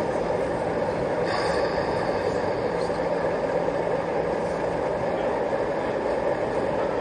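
Steady running sound of a sound-fitted O gauge model diesel locomotive, with a hiss joining about a second in.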